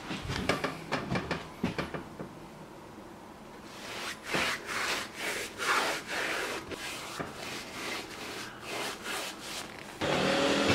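Bristle brush scrubbing wood stain onto rough-sawn Japanese cedar boards: runs of quick scratchy back-and-forth strokes with a pause between them. Near the end a steady hum cuts in.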